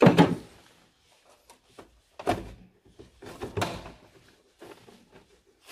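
A hard plastic engine-bay cover being pulled free by hand and handled. There is a sharp clunk at the start, two more knocks with scraping about two and three and a half seconds in, and lighter clicks between them.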